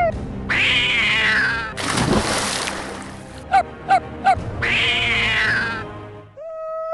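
A cartoon cat screeching in pain as it is dropped onto spikes: two long harsh yowls, one near the start and one near the end, with a loud noisy crash between them and three short yelps. A low music bed runs underneath.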